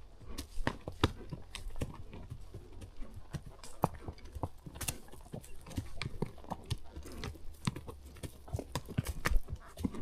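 Horse's hooves clopping and crunching on a dirt and rock trail at a walk: irregular sharp clicks, several a second, over a steady low rumble.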